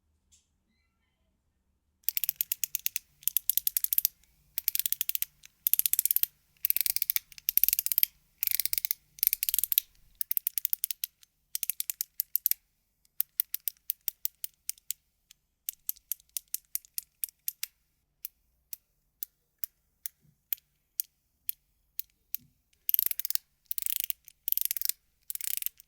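YEDC JiLi magnetic EDC fidget toy being clicked: after a couple of seconds of quiet, fast runs of sharp clicks about a second long, then single clicks a few times a second through the middle, and fast runs again near the end.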